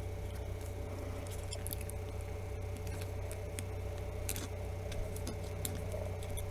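Faint scattered clicks and light scratching from a small Phillips screwdriver and tiny phone screws being handled, over a steady low electrical hum.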